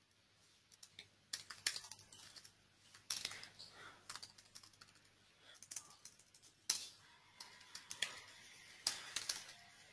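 Faint typing on a computer keyboard: short, irregular runs of keystrokes separated by brief pauses.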